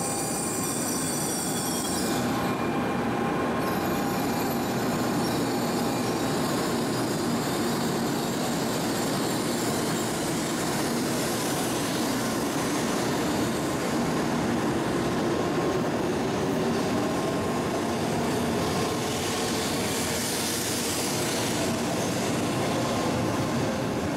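N700 series shinkansen pulling out of the platform and gathering speed past, a steady run of motor and wheel noise along the length of the train.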